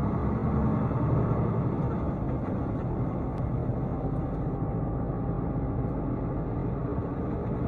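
Steady low rumble of a car driving along a road: engine and tyre noise.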